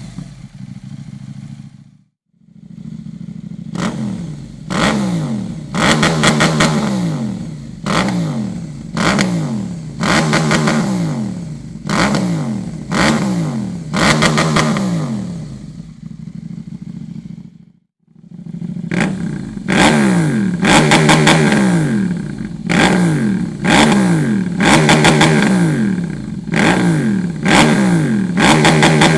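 KTM 790 Duke's parallel-twin engine, breathing through a Dominator aftermarket exhaust silencer, being revved in quick throttle blips about once a second. Each blip spikes up and falls back to idle. The sound drops out briefly twice, and after each drop it idles for a moment before the blips start again.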